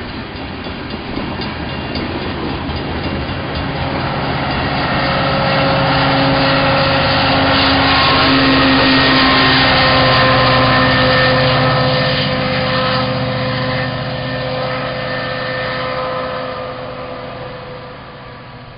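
Union Pacific freight train's diesel-electric locomotives passing close by: a steady engine rumble with several held tones that swells to its loudest about halfway through, then fades toward the end.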